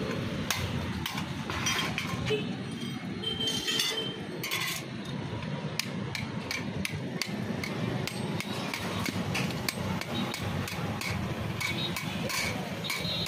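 Hand tools tapping and clinking in irregular light strikes, at times several a second, over a steady low background rumble.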